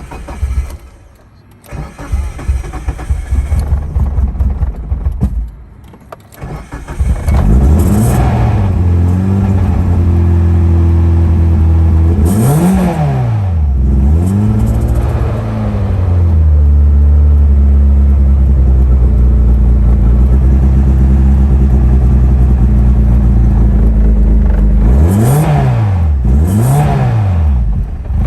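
Mitsubishi Lancer Evolution VIII's turbocharged 2.0-litre four-cylinder, fitted with cams, is cranked in stops and starts and catches about seven seconds in. It then runs cold and is blipped: four quick revs up and back down to idle, two near the middle and two near the end.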